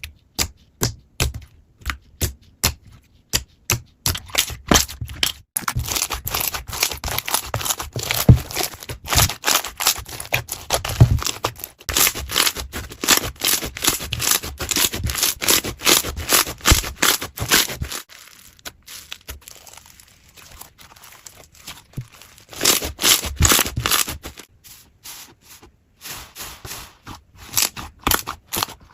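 Slime being squeezed and pressed by hand, giving a run of sharp clicks and pops, spaced at first and then dense, with a quieter spell about two-thirds of the way through.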